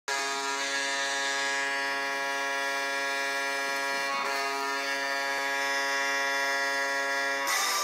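Toronto Maple Leafs' hockey goal horn blowing one long, steady blast of about seven and a half seconds. It starts abruptly and cuts off as guitar-driven goal music begins near the end.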